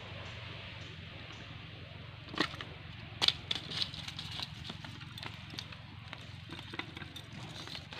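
Scattered sharp clicks and rustles of a nylon cast net being handled as a caught fish is worked free of the mesh, starting about two seconds in, over a steady low hum.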